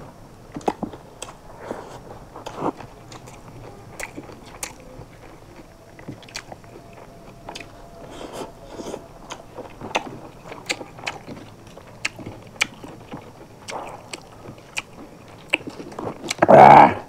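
Two people eating rice, fish curry and crunchy singju salad by hand, with frequent wet lip smacks, bites, crunches and chewing. Near the end comes one brief, much louder vocal sound.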